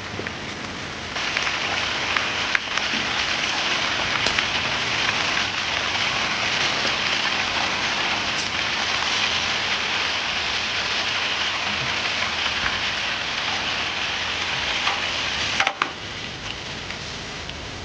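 Starch sausages sizzling in hot oil. A steady frying hiss with small crackles starts about a second in and drops off suddenly after a sharp click near the end.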